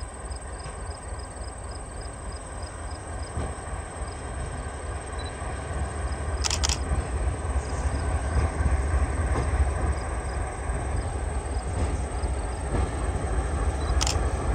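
Two Western New York & Pennsylvania diesel locomotives approaching, their engines' low rumble growing louder. Two brief sharp crackles sound, one about halfway through and one near the end.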